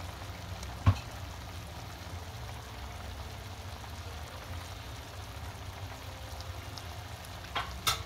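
Thick spinach gravy (palak paneer) simmering and bubbling in a pan over a steady low hum. A single sharp knock about a second in and a few clicks near the end, a spatula against the pan.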